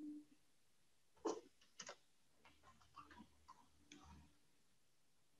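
A few faint, scattered clicks of a computer keyboard and mouse in near silence, the loudest about a second in.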